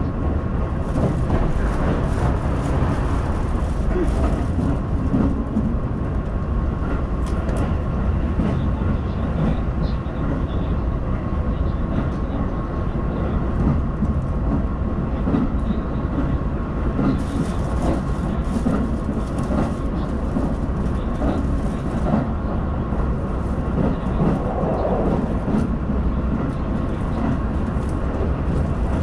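Keihan limited express train running, heard from inside the passenger car: a steady low rumble of wheels and running gear, with a faint steady tone above it.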